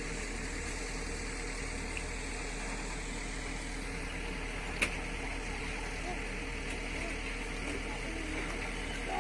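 Kobelco excavator's diesel engine running steadily, with one sharp click about five seconds in.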